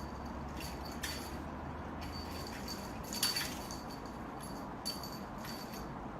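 Several light clinks with a faint high ring over steady background hiss; the loudest comes about three seconds in.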